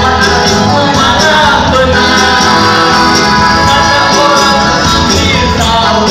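Band music: a pop song played with guitar and tambourine, with a voice singing over it.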